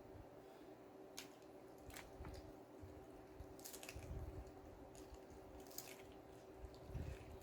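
Faint eating sounds: a handful of short wet mouth clicks and smacks while chewing food.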